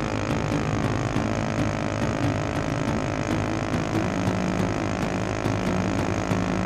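Single-cylinder ATV engine running steadily at speed, heard from on board the quad. Its note shifts about four seconds in.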